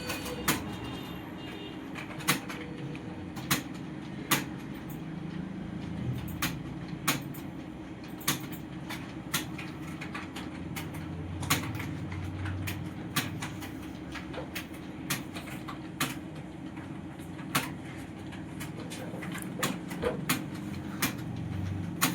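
Computer keyboard being typed on: irregular key clicks, the loudest about once a second, with fainter ones in between, over a steady low hum.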